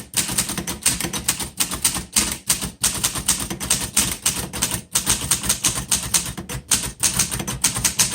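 1947 Underwood Universal portable manual typewriter being typed on: a steady run of key and typebar strikes, several a second.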